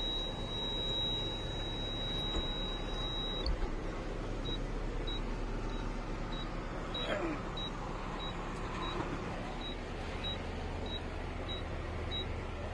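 Mahindra Blazo truck engine running with a steady low hum, heard from inside the cab. Over it a high electronic beep sounds steadily for about three seconds, then pulses about twice a second.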